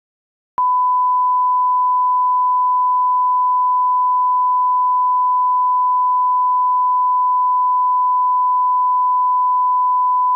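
Steady 1 kHz sine-wave line-up tone, the broadcast reference tone that goes with colour bars, starting abruptly about half a second in and holding at one unchanging pitch and level.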